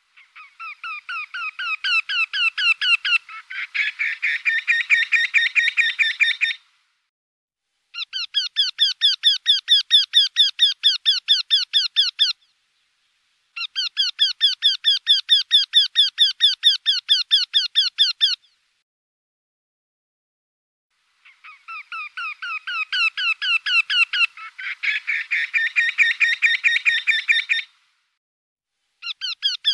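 Eurasian wryneck song: a run of rapid, evenly repeated notes, about five or six a second, in bouts of four to six seconds separated by short silences. Each bout grows louder over its first second or two. In two of the bouts a second overlapping run of notes joins partway through.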